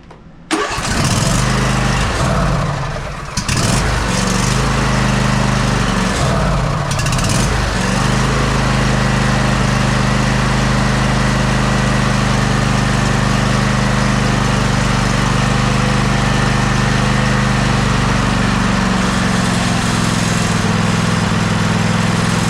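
Briggs & Stratton 24 hp V-twin engine of a riding mower starting about half a second in, running unevenly for the first several seconds, then settling into a steady run. It is running freshly fed fuel after stale gas left in the fuel bowl kept the mower from starting.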